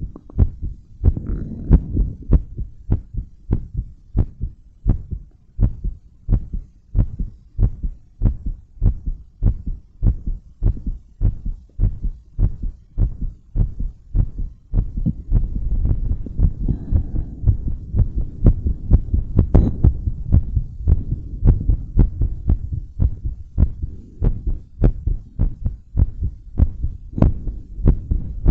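A woman's heartbeat heard close up, a steady, even train of low thumps. From about halfway, a steadier low rumble runs underneath the beats.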